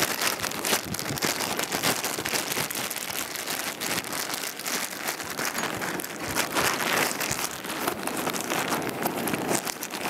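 River water flowing: a steady rushing hiss full of small crackles.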